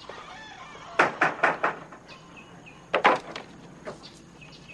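Knuckles knocking on a screen door: four quick raps, then a second, shorter round about two seconds later.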